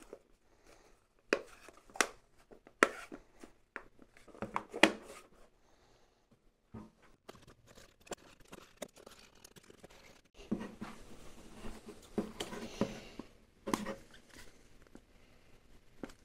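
Handling noise of a 3D-printed plastic torch housing being fitted together by hand: a few sharp plastic clicks and knocks in the first five seconds, then, after a quiet spell, a few seconds of scraping and rustling with more knocks.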